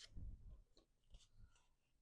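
Faint handling of cardstock: a soft low bump just after the start, then a few light paper rustles and clicks.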